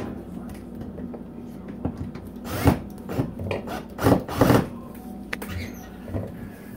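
A black metal wall-mount pot rack being shifted and held against a wall: a few short scrapes and knocks, the loudest about three and four seconds in.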